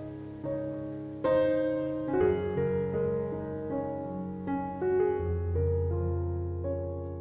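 Background piano music: a slow melody over chords, the notes struck and left to fade, with a loud chord about a second in and a low bass note entering near the end.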